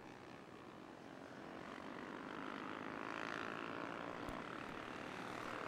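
Several Honda CB 300R race motorcycles' single-cylinder engines running at speed as they pass on the track, the engine drone growing louder over the first few seconds.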